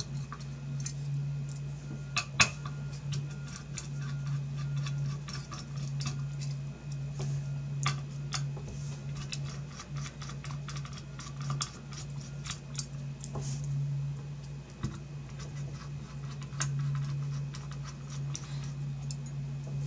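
Small screwdriver backing out the heatsink screws on the back plate of an XFX graphics card: scattered light metallic clicks and scrapes, irregular and spread throughout, over a steady low hum.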